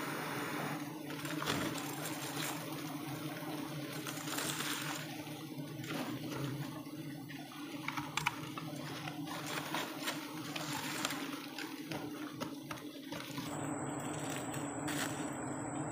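Giant honey bees (Apis dorsata) buzzing in a steady low hum around their exposed comb, with scattered knocks and rustles of handling.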